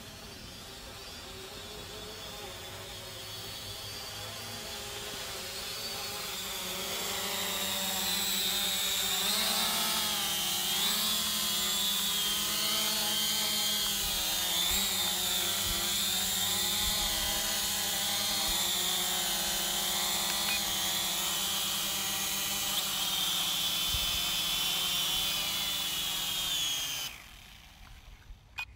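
Quadcopter drone's electric motors and propellers whining, several pitches wavering up and down as the motors change speed, growing louder over the first several seconds as it comes down to land. The whine cuts off abruptly about a second before the end as the motors stop.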